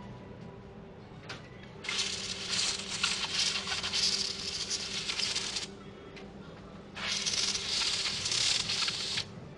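Automotive paint spray gun spraying in two passes: a compressed-air hiss that starts and stops sharply with each trigger pull, first for nearly four seconds, then after a pause for about two seconds. A faint steady hum runs underneath.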